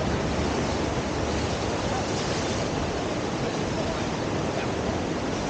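Steady rushing of whitewater at a river surf wave, an even hiss with no break in level.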